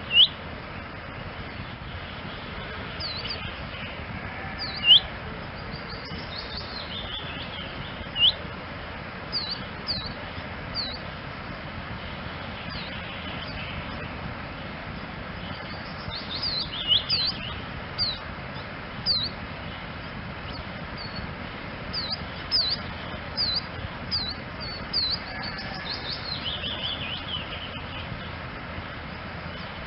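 Eurasian siskin calling: short, high, sliding call notes, scattered irregularly every second or so, with a few brief twittering phrases, over a steady background hiss.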